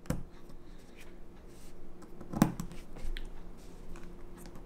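Insulated female spade connectors being pushed onto the quick-connect terminals of oval metal-can run capacitors: small scattered clicks and rubbing, with the sharpest click about two and a half seconds in.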